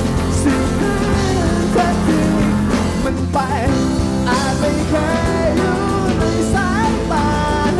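Rock music with guitar and a singing voice.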